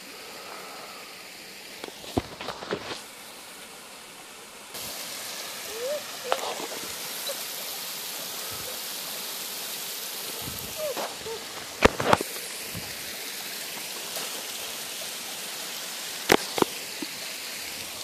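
Steady rushing hiss of water running beneath the ice of a frozen waterfall, which gets louder about five seconds in, with a few sharp crunching footsteps on packed snow and ice.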